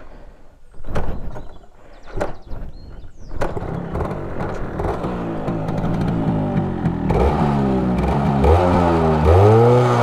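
Yamaha RX135 single-cylinder two-stroke engine, with its silencer core in place. Three sharp knocks in the first few seconds, then the engine catches about three and a half seconds in and runs. Near the end it dips and is revved up to a higher steady note.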